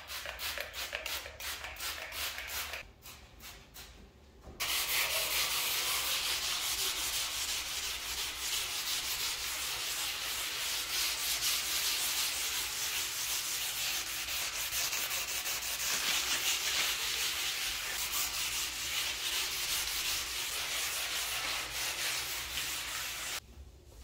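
A few quick squirts from a trigger spray bottle, then a sponge scrubbing a stone countertop in steady, continuous back-and-forth rubbing.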